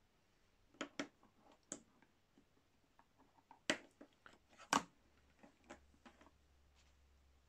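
Multimeter test lead and probe wires being handled as a lead is plugged into the meter's COM jack: a scattered series of small plastic clicks and knocks, the two loudest about a second apart near the middle.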